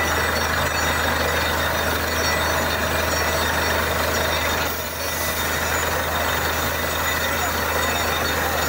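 Borewell drilling rig running: a loud, steady mix of engine drone and air-blast hiss, dipping briefly about five seconds in.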